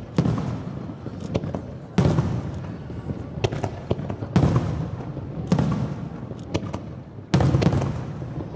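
Aerial fireworks shells bursting: five loud booms a second or two apart, each trailing off in a rumble, with sharper pops and crackles in between.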